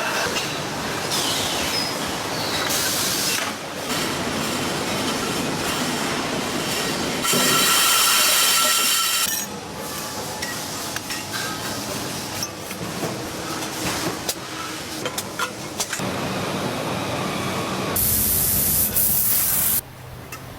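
Loud factory machinery noise with hissing and rattling, changing abruptly every few seconds as one production-line sound gives way to another.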